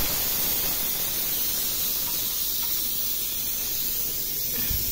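Steady hiss of pressurised test gas venting from a car A/C system through the service hose, easing slightly toward the end, as the pressure-test charge is let out before vacuuming.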